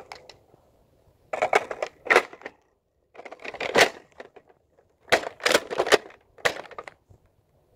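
Plastic clacks and rattles of a spring-powered Nerf dart blaster being reloaded, primed and fired, in several quick bursts of sharp clicks with short pauses between.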